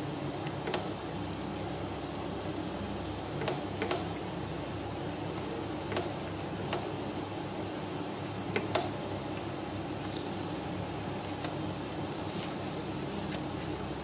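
A silicone spatula knocking and scraping against a nonstick pan as toasting bread sandwiches are pressed and moved, about seven short knocks at irregular moments over a steady low hum.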